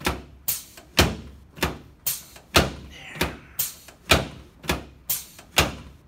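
A steady run of sharp thumps, about two a second, from hands pressing rhythmically down on a person's upper chest on a padded chiropractic table during a chiropractic adjustment.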